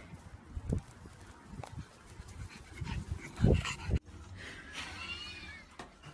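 A few dull thumps, the loudest a little past the middle, then a puppy whining briefly in short rising and falling cries.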